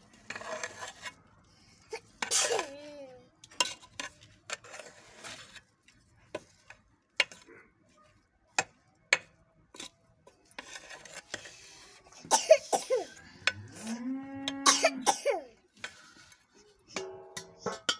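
Metal ladle scraping and clinking against a metal cooking pot as rice is served out, a string of sharp clinks with short scrapes between them.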